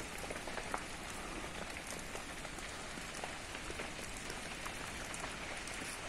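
Large fire burning through cut vegetation on a slash-and-burn field: a steady hiss with many small, irregular crackles and pops.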